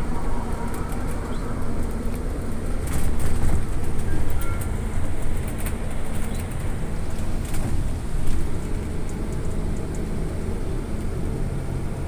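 Cabin noise inside a moving electric trolleybus: a steady low road rumble, with scattered rattles and clicks that come loudest about three to four seconds in.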